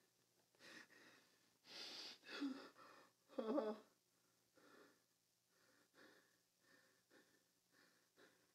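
A man's ragged, gasping breaths and sobs. The loudest comes as a voiced sob about three and a half seconds in, followed by fainter, shorter breaths at a steady pace.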